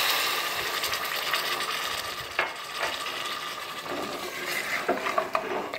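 Mutton and tomato masala sizzling in a hot pressure cooker as water is poured in, the hiss slowly dying down. A wooden spatula stirs the meat, knocking and scraping against the pot, a couple of times mid-way and more near the end.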